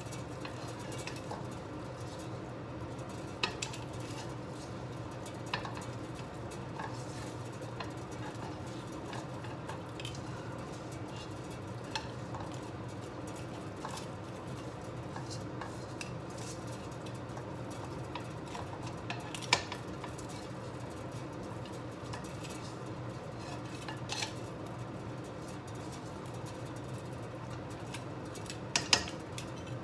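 Metal tongs and a silicone basting brush clinking and scraping in a large pan as chicken drumsticks are turned and brushed with sauce, with a few sharper clicks, the loudest about two-thirds of the way through and again near the end. A steady low hum runs underneath.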